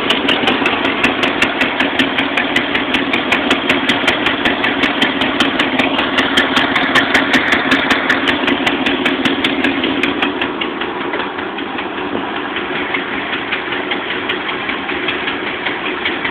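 Engine idling with a regular pop-pop-pop, about four or five pops a second. This is the odd popping noise that is the owner's concern. The pops grow fainter after about ten seconds.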